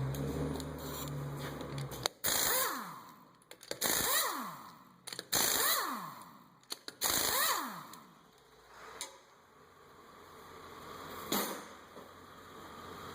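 Impact wrench spinning off the wheel's four lug nuts: four short loud bursts, each starting sharply and winding down in pitch, followed by a couple of light metallic clicks.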